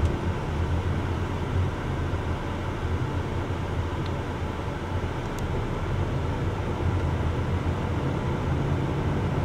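Car engine and tyre noise heard from inside the cabin while driving slowly in second gear under gentle acceleration: a steady low rumble.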